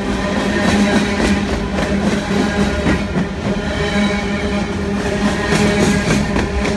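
Empty coal cars of a freight train rolling past close by. A steady rumble and clatter of wheels on rail runs under a constant droning hum.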